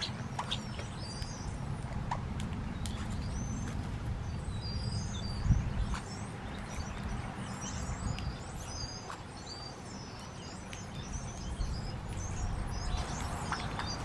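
Small birds chirping and twittering in short high notes throughout, over a steady low rumble, with scattered light clicks and one sharp knock about five and a half seconds in.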